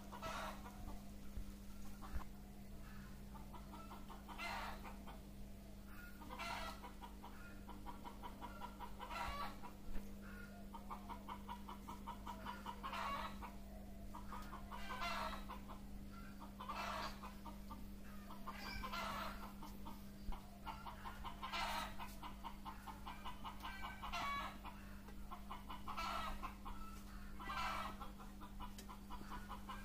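Repeated short animal calls, about one every two seconds, some with a rapid pulsing quality, over a steady low hum.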